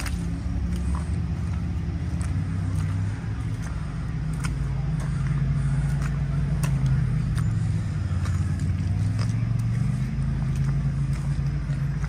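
Vehicle engine idling steadily, its low pitch drifting slowly up and down, with scattered sharp clicks.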